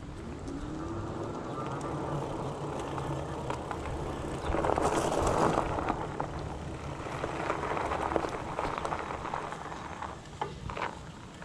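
Bicycle tyres rolling: a steady hum on pavement, growing into a louder crunch over a dirt and gravel path about five seconds in, with a few small clicks near the end.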